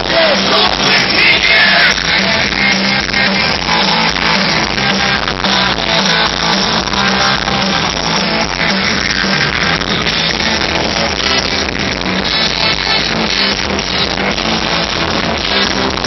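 Live rock band amplified through a concert PA, with a steady beat and crowd noise underneath; the recording is muddy and cuts off the high end, the "awful sound" of an amateur recording.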